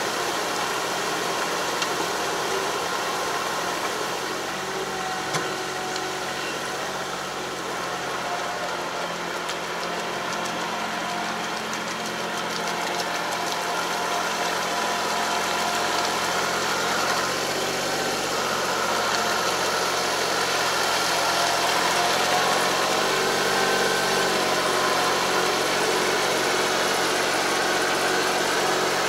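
Tractor engine running steadily while pulling a 3 m puddling harrow through a flooded rice paddy. The engine note shifts about two-thirds of the way through and grows a little louder in the second half.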